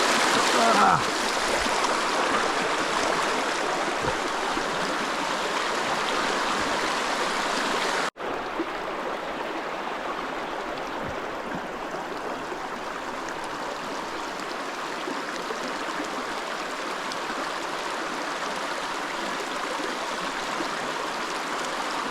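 Creek water rushing and splashing over rocks in a steady hiss. About eight seconds in it drops out for an instant and returns a little quieter and duller.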